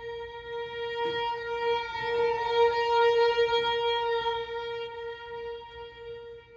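String quartet playing: one long held note sounds throughout while other strings add short notes, with a sharp attack about a second in. The music swells to its loudest a little before the middle and fades toward the end.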